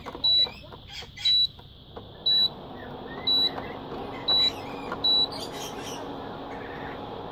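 Induction cooker beeping: a short, high electronic beep about once a second, six times, stopping about five seconds in. The cooker is failing to engage. From about two and a half seconds in, a steady hum from the cooker's cooling fan runs under the beeps.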